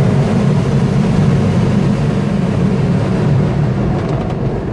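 Steady rush of airflow around an engineless glider's cockpit in aerobatic flight, growing a little quieter near the end.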